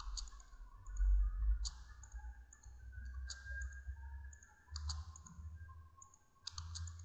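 Computer mouse clicking every second or two, some clicks in quick pairs near the end, over a steady low background rumble.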